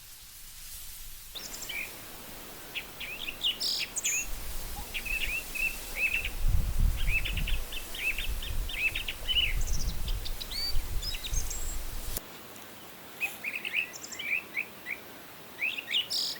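Small birds chirping, a rapid string of short high calls in clusters, over a low rumble that cuts off abruptly about three-quarters of the way through.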